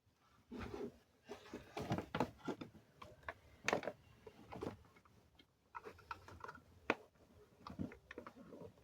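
Scattered, irregular clicks and knocks with short rubbing sounds, as of hard objects being handled by hand.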